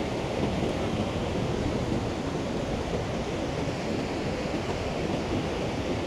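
Steady rush of sea surf washing on the shore, with wind rumbling on the microphone.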